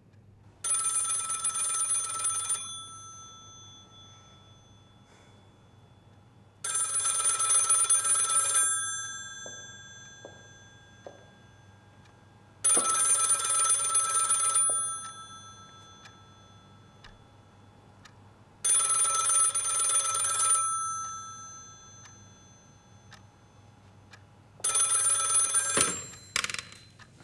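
Rotary-dial telephone's bell ringing five times, each ring about two seconds long with about four seconds of silence between rings. The last ring is cut short as the handset is lifted off the cradle with a few clicks.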